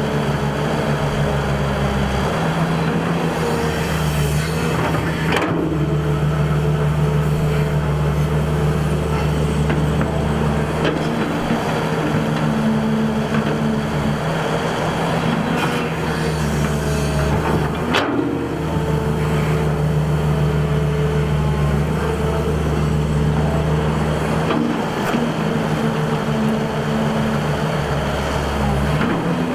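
Excavator's diesel engine running steadily, its note shifting every few seconds, with a few sharp knocks.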